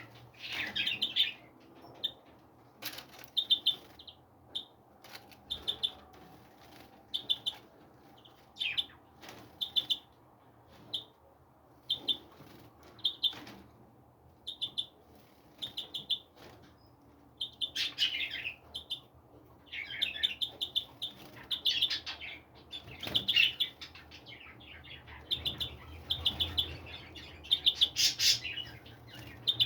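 Small birds chirping in quick short calls, repeated every second or so, with a few busier flurries of calls around two-thirds of the way through and near the end. A few sharp clicks come in between.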